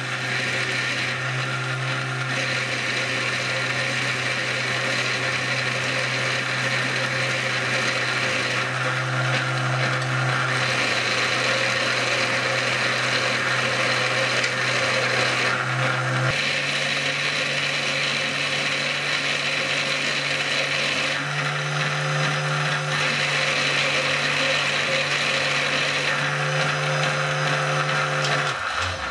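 Homemade powered 'scary sharp' sharpening machine running steadily: an electric motor hum with the rasp of a carving gouge's bevel rubbing on the spinning abrasive wheel. The hum changes pitch slightly about halfway through, and the machine stops suddenly near the end.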